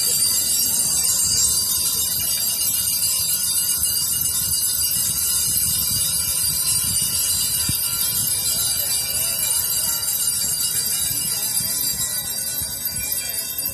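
Many bells ringing together without pause, a bright, jingling wash of overlapping tones that eases off near the end.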